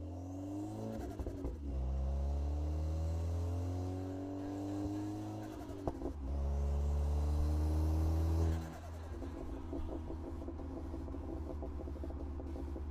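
Turbocharged Toyota Supra engine revved twice, its pitch climbing on each rev. After the throttle snaps shut on the second rev, the turbo flutters: a rapid, even "stututu" chatter of compressor surge.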